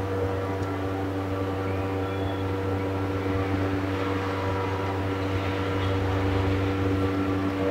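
Electric guitar and amplifier holding a steady drone: a strong low hum with a stack of steady overtones above it.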